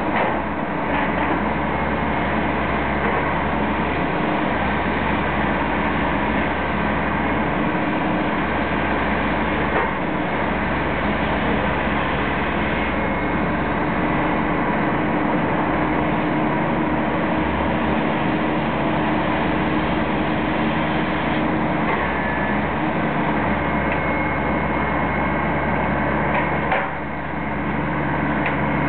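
Diesel engine of a demolition excavator running steadily as it works its grapple claw at a steel building frame, dipping briefly near the end.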